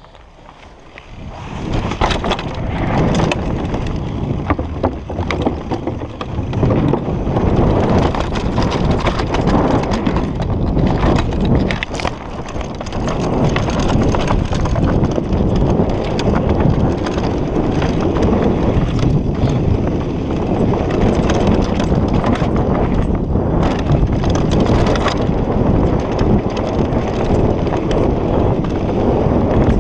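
Mountain bike riding fast down a dirt trail: wind buffeting the microphone over the rush of knobby tyres on dirt, with frequent knocks and rattles as the bike hits bumps. It starts quiet and builds up over the first couple of seconds as the bike gets going.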